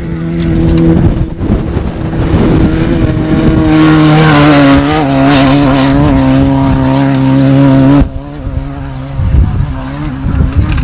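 Off-road desert race vehicle engine running hard at a steady pitch, which steps down about four seconds in. The sound changes abruptly about eight seconds in to a rougher, uneven engine noise.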